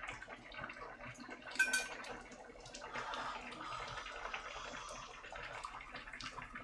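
Braised mackerel and kimchi simmering and bubbling in a pot on a gas burner, with scattered small clicks. A single metal clink rings out about a second and a half in.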